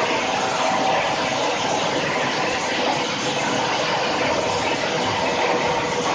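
Hammer mill with cyclone running: a steady, loud rushing noise with a faint steady whine underneath.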